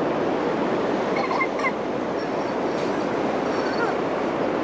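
Steady wash of ocean surf, an even rushing noise without breaks. Faint, brief high-pitched sounds come and go a little over a second in and again near the end.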